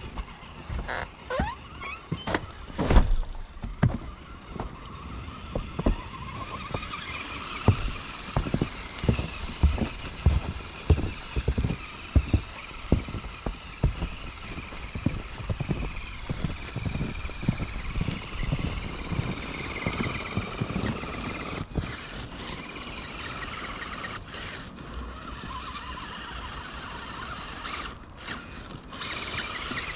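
Electric RC crawler truck driving through snow: a whining motor and gears that swell and fade with the throttle, over many short low thumps and knocks.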